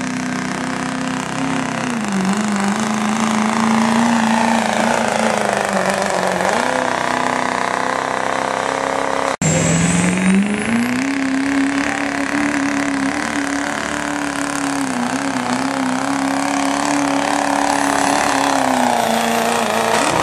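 Diesel pickup truck engines at full throttle pulling a weight-transfer sled, each held at high revs under heavy load. The first engine's pitch sags and recovers twice. After a sudden break about nine seconds in, a second truck's engine revs up, holds high revs through its pull and drops off near the end.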